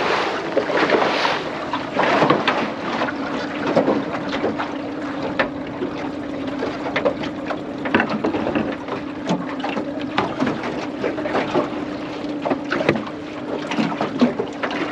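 Tohatsu outboard motor running at speed with a steady drone, while the aluminium hull slaps and splashes through the chop in irregular knocks.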